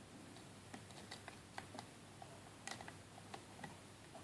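Faint, irregular little clicks of a hook pick working the pin tumblers of a Brinks 70mm padlock held under tension, with the lock in a false set.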